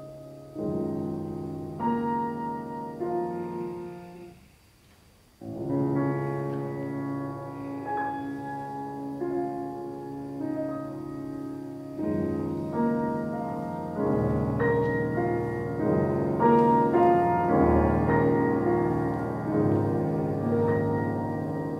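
Solo classical piano played on a grand piano: struck chords and notes ringing, breaking off into a brief pause about four and a half seconds in, then resuming and growing louder and fuller in the second half.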